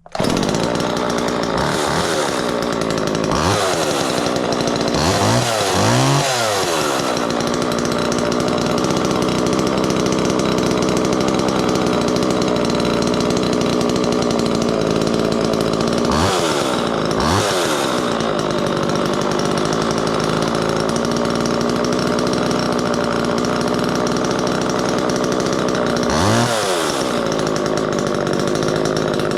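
Small chainsaw engine idling steadily, its throttle blipped so that it revs up and falls back several times: a couple of short revs early, a longer run of revs around five to seven seconds in, two more past the middle and one near the end. The saw is running well, a good running chainsaw.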